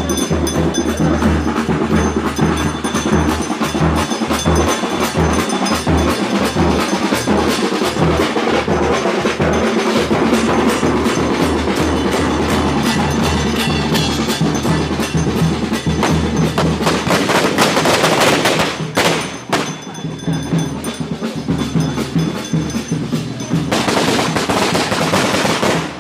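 Loud, dense percussion: drums beaten in a fast, clattering rhythm for a funeral procession. It drops back briefly about two-thirds of the way through.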